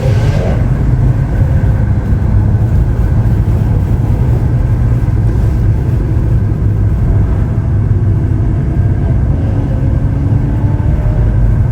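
Lamborghini Aventador SV Roadster's V12 finishing a rising acceleration just after the start. The car then cruises with a steady, loud low rumble of engine and road noise, its engine note fainter beneath.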